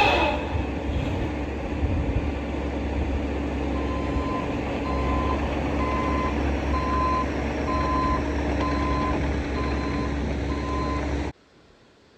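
Bobcat E55 mini excavator's diesel engine running steadily, its travel alarm beeping at an even pace, about one and a half beeps a second, from about four seconds in. There is a brief squeal at the very start, and all of it cuts off abruptly near the end.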